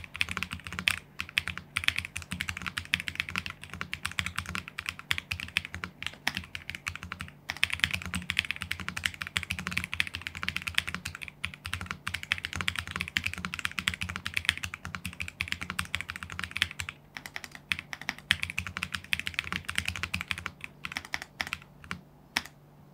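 Typing test on a Leobog K81 75% gasket-mount mechanical keyboard with Leobog Ice Crystal linear switches: a dense, continuous run of keystroke clacks, broken by a few brief pauses.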